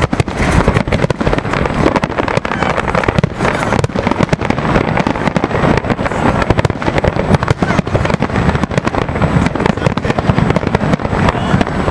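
Fireworks display: a rapid, unbroken series of bangs and crackles from aerial shells bursting.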